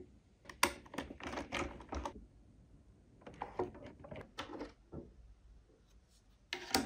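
Hard plastic clicking, tapping and knocking as the body shell and chassis of a 1/16-scale RC car are handled and pulled apart. The sounds come in irregular clusters, with one sharper knock near the end.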